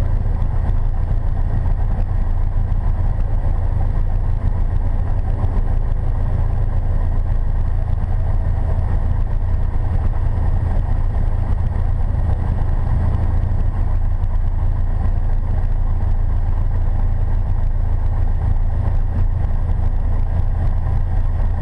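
Single-engine light airplane's piston engine and propeller running steadily at low taxi power, an even drone heard from inside the cockpit.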